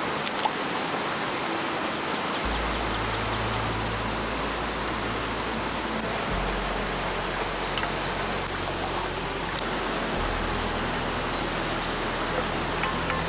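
Mountain stream running high and fast with monsoon rain, a steady rush of water, with a few faint high chirps over it.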